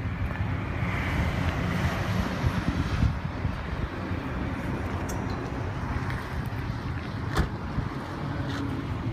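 Steady motor-vehicle rumble with wind on the microphone, and a couple of sharp clicks near the end.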